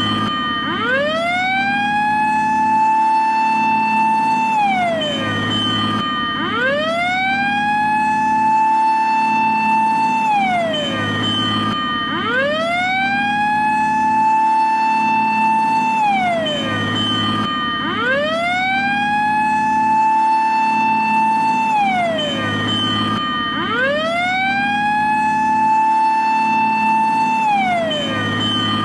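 Japanese fire engine siren sounding its fire-call pattern: a wail that rises, holds for about three seconds and falls, repeating about every six seconds, five times, over a steady low hum.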